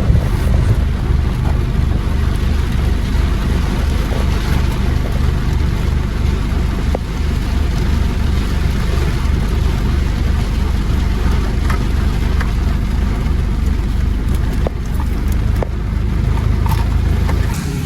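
An engine running steadily, with an even low throb under a continuous rushing noise.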